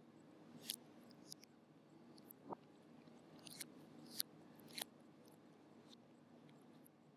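Faint wet mouth clicks and smacks of someone chewing banana: about six sharp clicks spread across a few seconds, the loudest about four seconds in.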